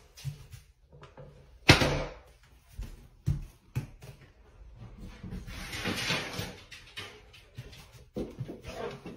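A door being handled in a small tiled room: a few sharp knocks and clicks, the loudest about two seconds in, with a softer rushing noise around the middle.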